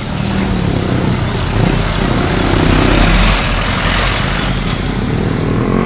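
Light cargo truck's engine running as it goes by on the road, over general traffic noise, loudest about three seconds in.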